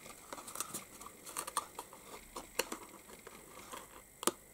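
Cardstock box panels handled and pressed together by hand: faint rustling and small taps of card on card, with one sharper click about four seconds in.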